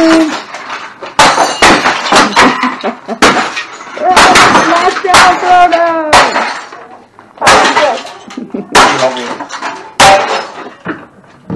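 Repeated hard, irregular blows of hand tools smashing junk, with breaking and shattering of plastic and glass: about a dozen strikes, several with a short ringing after. A voice is heard between blows around the middle.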